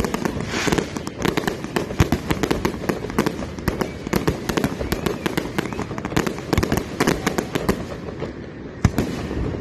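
Fireworks bursting in a rapid, dense barrage of sharp bangs and crackles, thinning out near the end with one louder bang.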